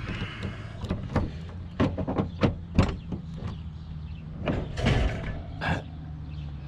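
A vehicle door being worked and scrap being handled at the back of the vehicle: a run of sharp knocks and clanks, loudest around the middle, over a steady low hum.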